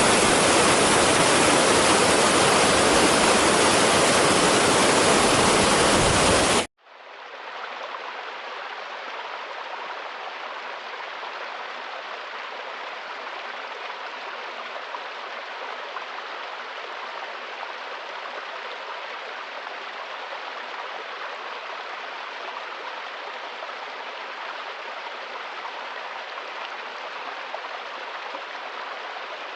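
Loud, steady rush of water for the first several seconds, cut off abruptly about seven seconds in. It is followed by the quieter, steady running of a stream.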